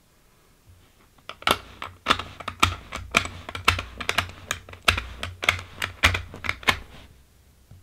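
.223 cartridges snapped one after another into a polymer PMag rifle magazine by hand at speed, a quick run of sharp clicks lasting about five seconds.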